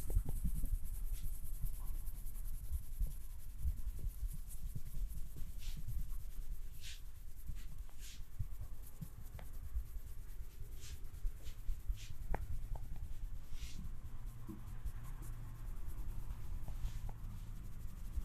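Close-miked massage: hands rubbing and kneading over skin and hair, with soft scratchy strokes every second or two over a steady run of dull low knocks.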